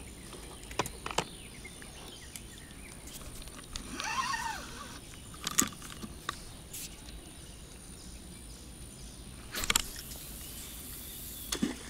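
Outdoor riverbank ambience with scattered light clicks and taps. About four seconds in there is a brief rising-and-falling call, and near the end a short high hiss.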